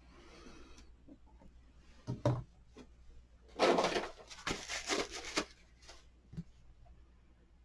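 Stamping supplies handled on a desk: a couple of sharp clicks about two seconds in, then about two seconds of quick tapping and rubbing, with a few lighter ticks near the end.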